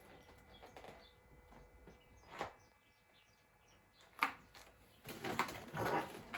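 Faint bird chirps in the background, with a click about two and a half seconds in, a sharper, louder click about four seconds in, and a rustle of handling over the last second and a half.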